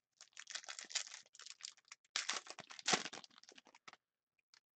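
Crinkling and tearing of a hockey card pack's plastic wrapper as it is ripped open and the cards pulled out, a dense run of crackles that stops about four seconds in.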